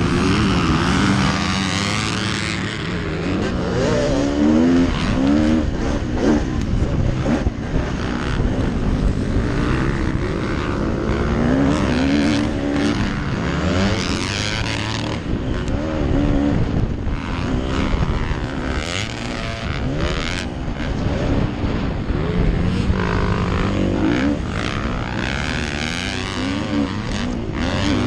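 KTM SX 250F's single-cylinder four-stroke motocross engine under racing load, revving up and dropping back again and again as the rider accelerates and shifts between corners, heard from the rider's helmet.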